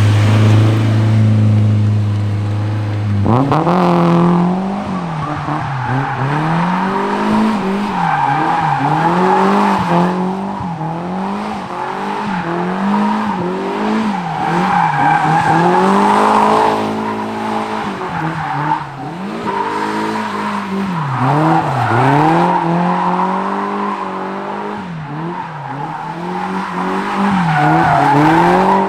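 Nissan S13's KA24 four-cylinder engine held at steady revs for about three seconds, then revving up and down repeatedly in first gear while the rear tyres squeal through a drift. With the welded differential spinning both rear wheels, the car slides on clutch and throttle alone.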